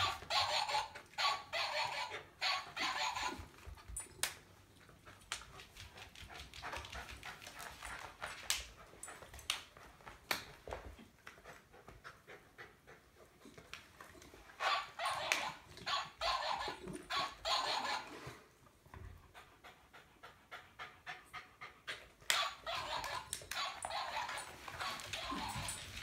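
West Highland white terrier panting hard in quick bouts: at the start, again midway, and near the end, with scattered sharp clicks and knocks in between.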